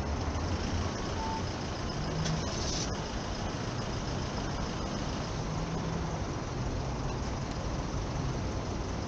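City street traffic: road vehicles running past with a steady low engine drone, and a brief high hiss about two and a half seconds in.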